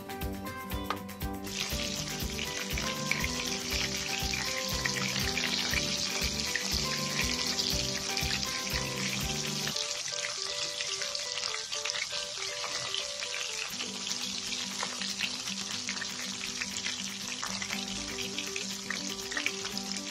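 Starch-coated oyster mushroom caps deep-frying in hot oil in a pan: a steady sizzle with fine crackling, starting about a second and a half in. Background music with a steady beat plays underneath.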